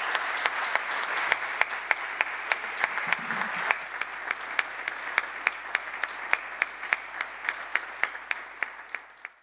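Audience applauding, with one clapper near the microphone keeping a steady beat of about three claps a second. The applause thins out over the last few seconds and stops.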